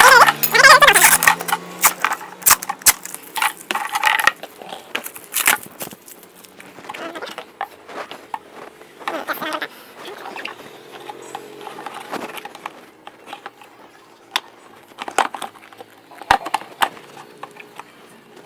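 Hard moulded plastic table parts knocking, clicking and clattering as the legs and frame are handled and pushed together; the knocks come thick and fast at first, then more sparsely.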